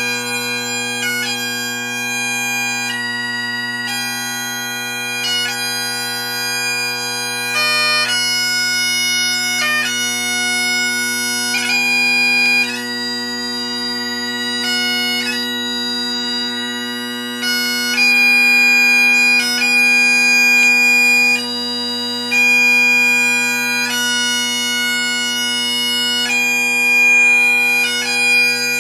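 Great Highland bagpipe played solo: the drones hold one steady low chord under a chanter melody that moves note to note, with quick grace-note flourishes between notes.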